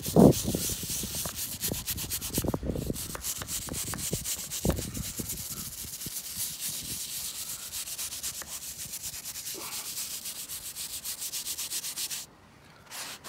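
Small hand wire brush scrubbing rapidly back and forth on the edge of an acid-wetted terracotta tile, scouring off white calcium and lime efflorescence. A low bump comes right at the start, and the scrubbing stops near the end.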